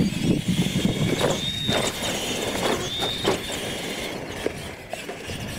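High-pitched whine of radio-controlled monster trucks' electric motors and gears at full throttle, wavering slightly in pitch and fading as the trucks race away across the dirt, with a few scattered knocks.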